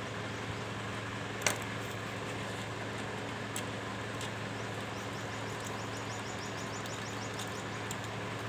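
Small metal clicks and taps from a pocket multitool and a small screw as the screw is driven by hand into a plastic steamer handle. One sharp click comes about a second and a half in, and a run of quick, faint squeaks follows in the second half as the screw turns. A steady background hum runs underneath.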